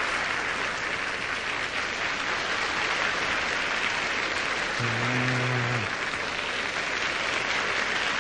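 Large arena crowd applauding steadily. A brief low steady tone, about a second long, sounds over the applause about five seconds in.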